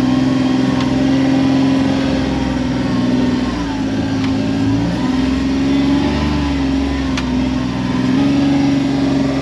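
Kawasaki Mule Pro FXR side-by-side's engine running as it crawls along a trail, its speed sagging a few seconds in and picking back up near the end. There is one sharp click about seven seconds in.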